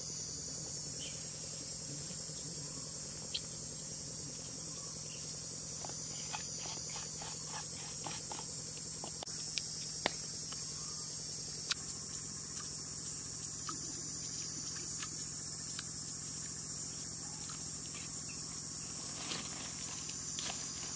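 Steady, high-pitched insect chorus, with scattered small clicks and taps.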